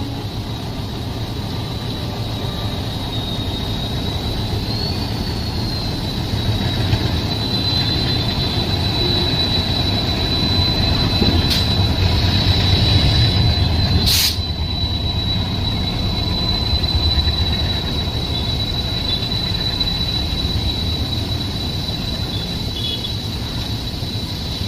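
Train running along the track: a steady rumble with a thin, high, steady whine over it, and two sharp clicks about eleven and fourteen seconds in.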